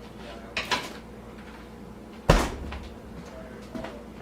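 A light knock and then, about two seconds in, a single loud sharp bang with a short low rumble after it, like a door or cupboard shutting.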